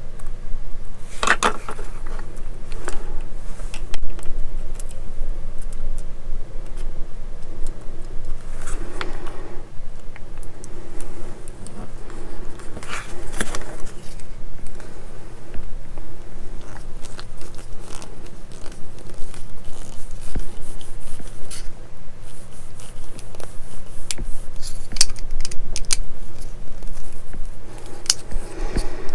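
A small screwdriver driving a tiny screw into plastic model-kit parts, with scattered light clicks and scrapes as the plastic pieces are handled.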